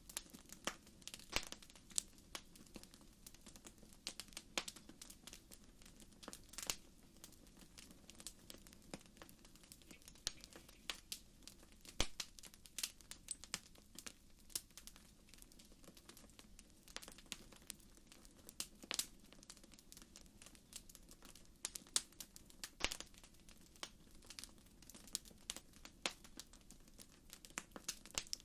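Campfire crackling, with irregular sharp pops and snaps.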